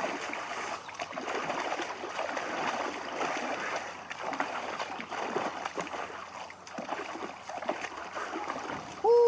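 Water splashing irregularly as a person washes, sitting in a shallow stream and scooping water over himself, over the running stream.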